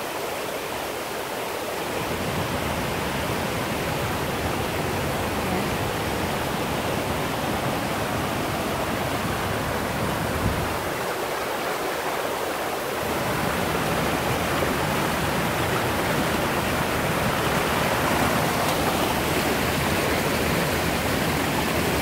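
Rain-swollen mountain stream rushing and cascading over rocks like a small waterfall, a steady rush of water that grows a little louder about halfway through.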